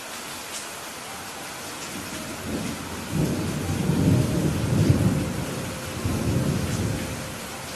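Steady rain with a low roll of thunder that builds about two and a half seconds in, peaks around the middle and dies away near the end.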